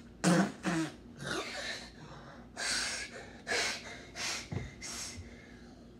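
A young man gasping and huffing in about six short, forceful breaths, the first with a voiced grunt, in disgust at the foul taste of a Bean Boozled jelly bean he has just eaten.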